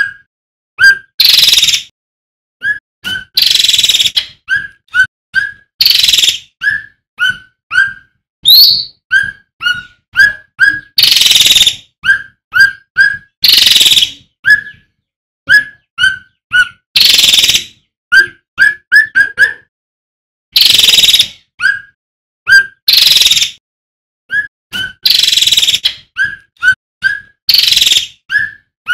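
Male cucak ranting (cucak rante) singing loudly and continuously: rapid, short whistled notes that flick upward in pitch, broken every second or two by a loud harsh rasping note.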